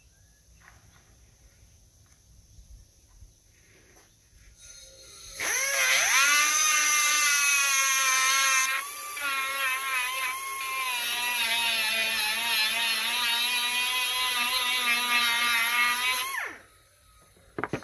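A small handheld electric power tool whines up to speed about five seconds in, runs steadily for about eleven seconds, and winds down near the end. This happens while chainsaw chain is being cut at the bench.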